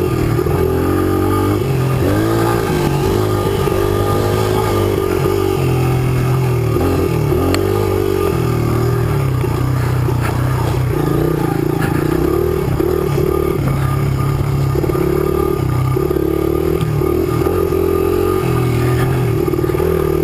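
A 2005 Honda 100cc trail bike's small four-stroke single-cylinder engine running while riding a dirt trail, its pitch rising and falling as the throttle opens and closes.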